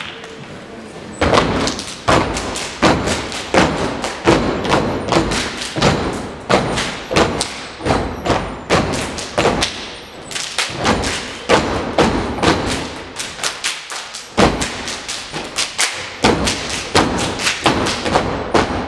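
Loud dance music with a heavy, evenly spaced beat for a stage dance routine, kicking in about a second in and dropping out briefly about three quarters of the way through before the beat returns.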